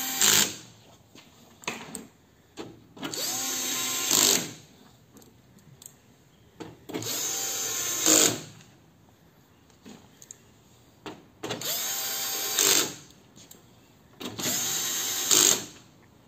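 Electric screwdriver driving screws in four short runs of about a second each, a few seconds apart. Each run spins up quickly to a steady whine and ends in a brief louder burst.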